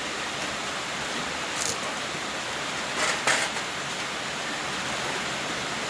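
Steady hiss of heavy rain, with a few faint clicks about a second and a half and three seconds in.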